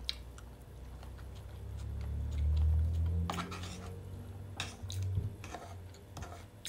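Chewing a mouthful of soft buttered potato, with a low muffled rumble swelling around the middle and a few short clicks of a metal fork against a wooden bowl in the second half.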